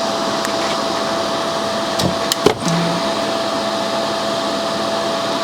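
Steady whirring of a small electric blower motor with a constant hum tone running through it. There is a single sharp click about two and a half seconds in.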